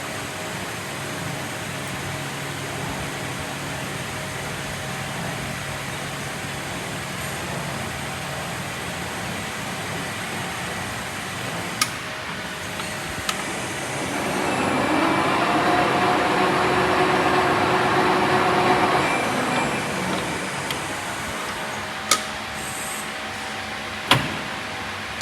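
Metal lathe running steadily during a thread-cutting operation. About halfway through it grows louder for roughly five seconds with a faint whine as the threading tool cuts. A few sharp clicks come in between, two of them near the end.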